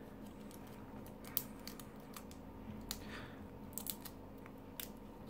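Faint, scattered small clicks and light handling noise of fingers working a plastic action figure, picking a small protective plastic piece off its foot.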